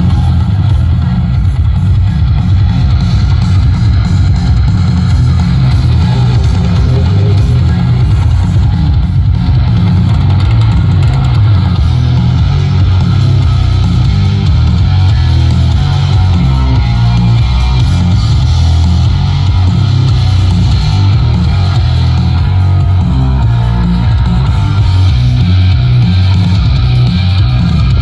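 Loud rock music with electric guitar and very heavy bass, played through a large sound system.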